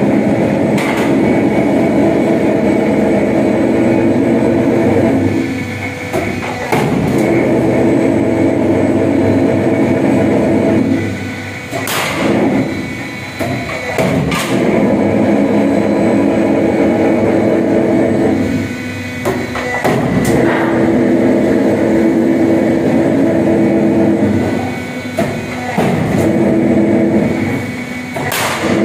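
Roll forming machine running a steel channel profile: a steady mechanical drone that pauses every five to seven seconds, broken by sharp metallic clanks from the hydraulic punching and cut-off head as it punches and cuts the formed section to length.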